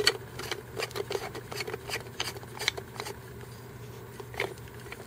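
Quick run of small clicks and rubs from hands gripping and twisting the plastic bowl of a Kobalt inline air filter, thinning out after about three seconds with one last click near the end, over a faint steady hum.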